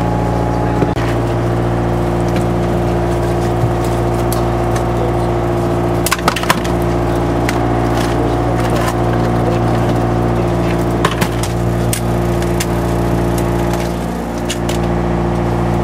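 Fishing boat's engine running with a steady drone, with scattered sharp knocks and clicks on board, a cluster of them about six seconds in and more a few seconds before the end.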